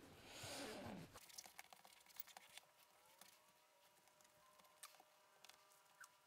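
Hands rubbing and pressing wet leather around a plastic-wrapped knife during wet forming, a soft rustle for about the first second. Then near silence with a few faint ticks.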